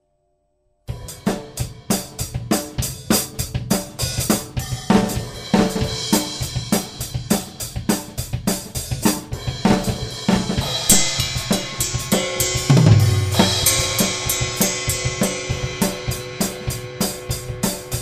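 Mapex Saturn Walnut/Birch drum kit played with close mics and no EQ: kick, snare, hi-hat, toms and Zildjian Z3 cymbals in loose fills and patterns. The playing starts about a second in, cymbal crashes thicken after the middle, and a deep tom or kick hit rings out a little later.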